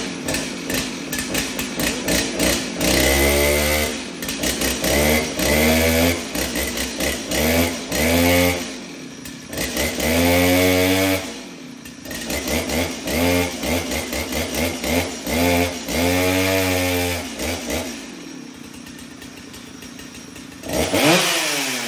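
Jonsered 2077 two-stroke chainsaw, freshly rebuilt with a ported replacement cylinder, running and being revved repeatedly. The pitch climbs and falls about seven times, running rough and lower between revs, with a last sharp rev near the end.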